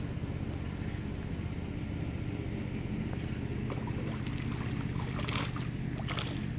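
A hooked bass splashing at the surface of the pond while being reeled in: a few short splashes in the second half, over a steady low hum.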